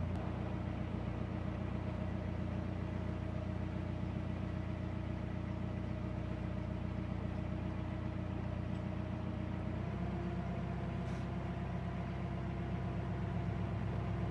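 Narrowboat diesel engine running at low canal speed, a steady throb. Its note eases right at the start as the boat slows for an oncoming boat, then steps slightly higher and stronger about ten seconds in as the boats come alongside.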